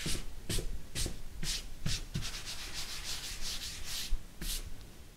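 Rhythmic rubbing or scraping strokes, about two a second, with a quicker flurry of short strokes a little past two seconds in, fading out near the end.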